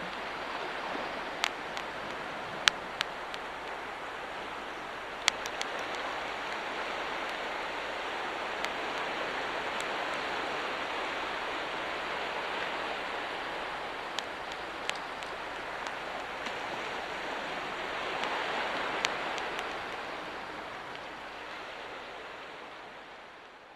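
Waves washing on a beach, a steady rushing that swells and eases, with a wood fire crackling in sharp pops now and then. The sound fades out near the end.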